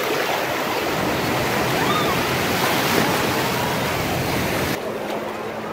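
Ocean surf washing in the shallows, a loud, steady rush of water with faint calls of swimmers in the background; the rush drops away about five seconds in.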